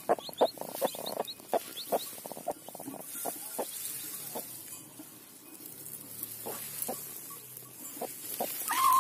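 Newly hatched chicks peeping in several short, high, rising chirps in the first two seconds, among short clicks and rustling straw in the nest. Just before the end the broody hen gives one louder call.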